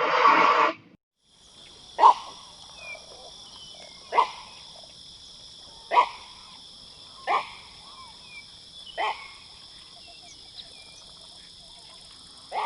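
Fiordland crested penguin (tawaki) calls: the end of a loud, harsh call, then five short, sharp calls, each dropping in pitch, spaced about every one and a half to two seconds. A steady high-pitched insect hum runs behind them.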